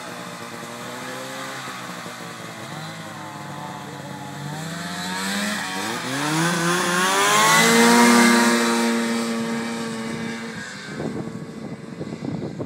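Two-stroke snowmobile engines running at low revs, then one revs up sharply about five seconds in, runs loud at high revs as the sled speeds past, and fades as it pulls away. Near the end a choppier, rougher engine noise takes over.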